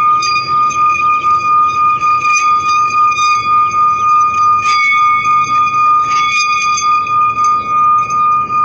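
Metal singing bowl sung by rubbing a wooden mallet around its rim: one steady ringing tone with higher overtones, swelling and dipping in a regular pulse as the mallet circles. Twice near the middle the mallet briefly scrapes against the rim.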